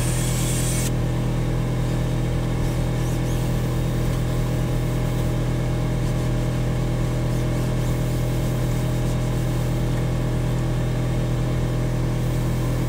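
Steady low machine hum: a drone of several fixed low tones that does not change.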